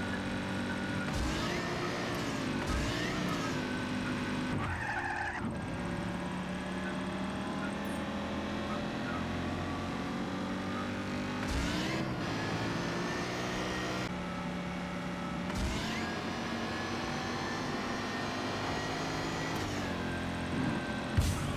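Motor vehicle engine running while driving, with a steady hum whose pitch dips and rises several times.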